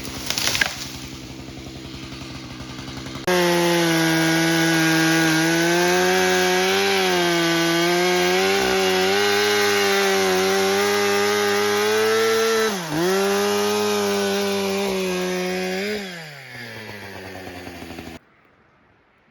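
Chainsaw idling, then throttled up to full speed about three seconds in and held there with a brief dip in pitch. It drops back to idle about sixteen seconds in and stops shortly after.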